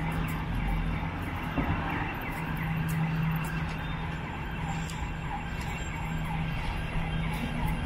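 City street traffic with a steady low engine hum and an emergency-vehicle siren wailing faintly in the distance.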